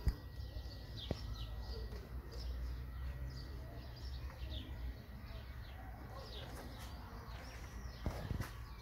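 Small birds chirping again and again, short falling chirps, over a faint low steady rumble.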